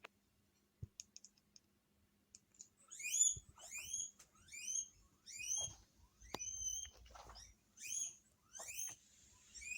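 Guinea pig wheeking: a run of repeated shrill rising whistles starting about three seconds in, after a few short high clicks.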